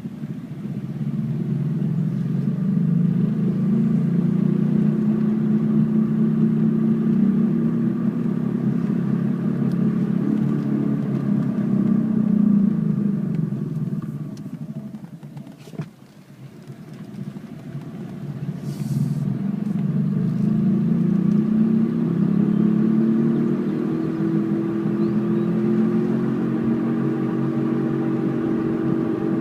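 Car's grinding noise while driving, a steady low grind that grows with road speed. It fades away at about the halfway point, as if the car slows almost to a stop, then builds again and holds as the car picks up speed.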